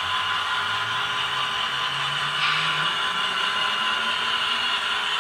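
HO scale BNSF Dash-9 model diesel locomotive running, its low engine drone stepping up in pitch over a steady hiss, with a short hissing burst about halfway through.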